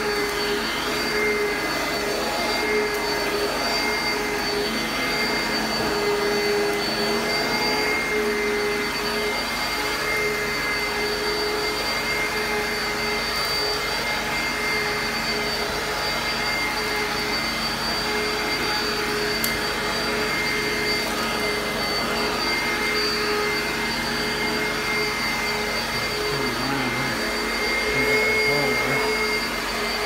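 Oreck XL upright vacuum cleaner running steadily as it is pushed over carpet: a constant motor whine over a steady hiss.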